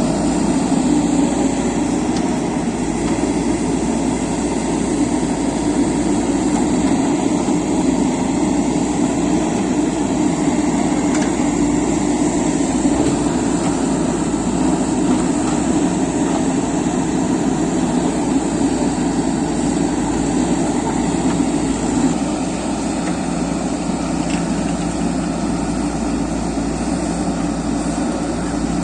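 JCB 3DX backhoe loader's diesel engine running steadily, a little quieter from about twenty-two seconds in.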